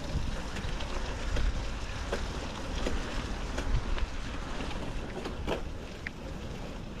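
Wind buffeting the microphone while a Norco Storm mountain bike is ridden, with steady tyre noise and scattered clicks and rattles from the bike.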